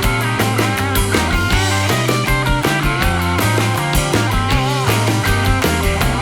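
Rock background music with a steady drum beat, bass and guitar.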